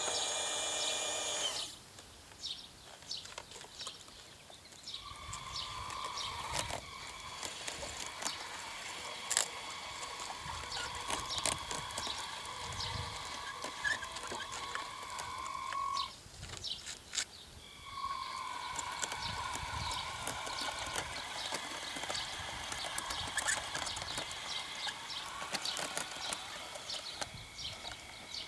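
Electric drive motors of a radio-controlled tracked loader whining steadily as it drives up loose dirt, stopping for about two seconds in the middle and then starting again, with scattered small clicks. A short buzzing tone sounds in the first second or two.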